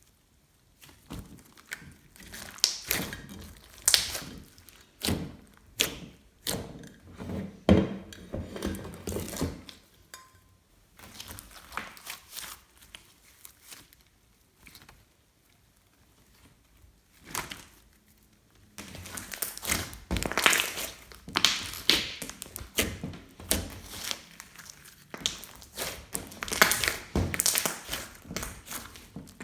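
Slime being squeezed, pressed and stretched by hand, giving irregular sticky clicks, pops and squelches. There is a pause of a few seconds midway.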